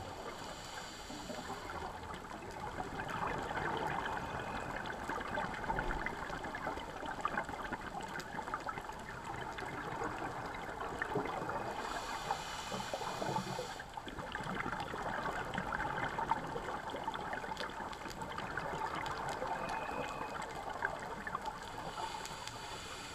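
Underwater sound of a scuba diver breathing through a regulator: a short hiss of inhalation near the start and again about 12 seconds in, each followed a couple of seconds later by a longer bubbling gurgle of exhaled air, over a steady fine crackle.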